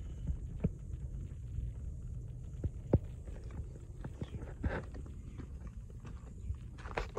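Footsteps and scattered knocks on the wooden floor of a box truck's cargo box over a low, uneven rumble, with one sharper knock about three seconds in.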